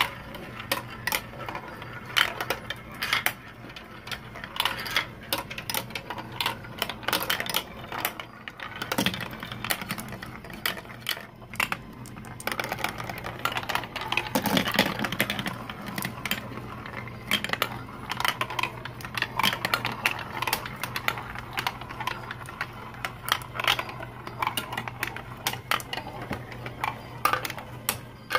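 Marbles rolling and clattering through a plastic marble run: rapid, irregular clicks and knocks as they drop through tubes, chutes and funnels. A steady low hum runs underneath.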